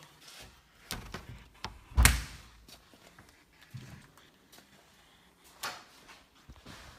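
Door being worked by its round knob: latch clicks and rattles, with a loud knock about two seconds in and another knock a little past halfway.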